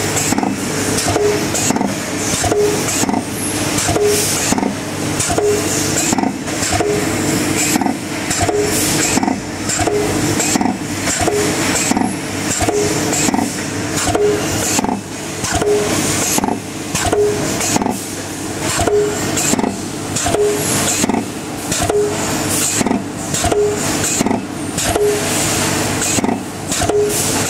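Thermoforming machine running, with a strange sound from its mould: a short tone repeating about every second and a half over a steady hissing, clicking machine noise.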